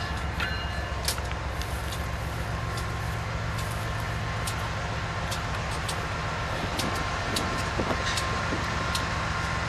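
Diesel locomotive engines idling steadily, a low even rumble, with scattered sharp clicks over it.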